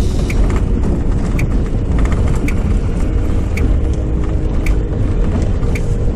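Car driving over a snow-packed road, heard from inside the cabin: steady low engine and tyre rumble, with a light tick repeating about once a second.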